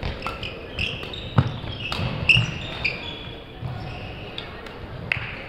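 Badminton play on a sports-hall court: several sharp racket hits on the shuttlecock, with shoe soles squeaking on the court floor and footfalls.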